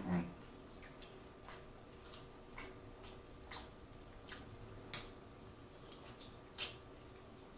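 Close-miked eating of rotisserie chicken: soft chewing with scattered wet mouth clicks and smacks, a sharper one about five seconds in and another about six and a half seconds in.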